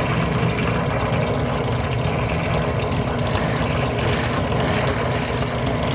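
Small benchtop drill press running steadily, its 1/8-inch glass drill bit turning as it drills a hole through a piece of glass.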